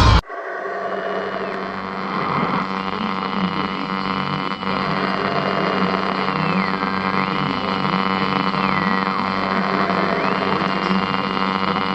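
Dark, droning horror ambience: a steady buzzing hum thick with overtones. Over it, a thin high tone slides down and back up several times. It cuts in and cuts off abruptly.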